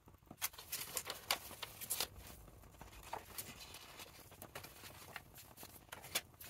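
Faint taps, clicks and rustles of paper pieces being handled and laid down on a work surface: a quick run of them in the first couple of seconds, then a few more spaced out.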